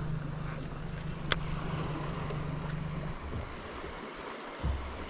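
A baitcasting reel casting: a faint falling whir as line pays off the spool, then a sharp click about a second in as the reel is engaged for the retrieve. Underneath, wind and lapping water and a steady low hum from the bow-mounted electric trolling motor, which stops about three seconds in.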